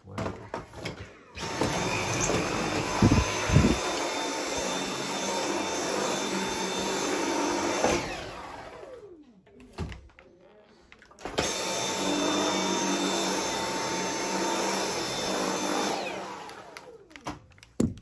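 Dyson V7 cordless stick vacuum running on a tiled floor in two bursts of several seconds, with a couple of knocks early in the first. Each time it is switched off the motor winds down with a falling whine.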